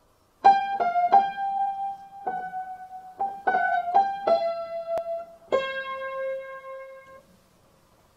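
Credits music: a short melody of about nine single notes struck on an electric keyboard, ending on a lower held note that fades out a little after seven seconds in.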